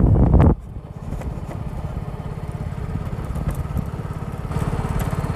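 Wind buffeting the microphone cuts off abruptly about half a second in, leaving a motorcycle engine running slowly with a steady low pulsing beat.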